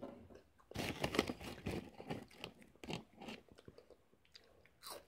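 A person chewing crunchy corn-and-potato snack fries (Chester's Flamin' Hot Fries) close to the microphone: a quick run of crisp crunches that tails off into a few faint ones after about three and a half seconds.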